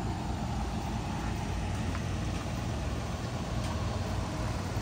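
Steady low rumble of an idling bus engine.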